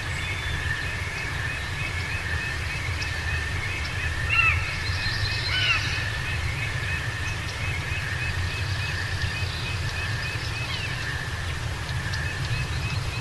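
A chorus of calling frogs: a steady high trill with repeated chirps several times a second. A few short whistled bird calls come about four and six seconds in, over a low steady rumble.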